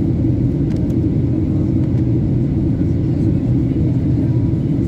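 Steady low rumble of an airliner's cabin noise from the engines, with no change in pitch or level.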